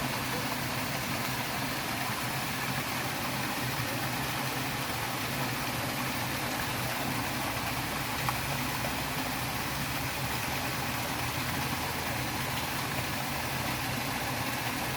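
Steady rushing noise of a waterfall and flowing stream water, even in level throughout, with one faint click about eight seconds in.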